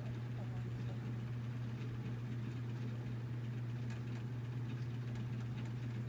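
A steady low machine hum that holds one pitch without change.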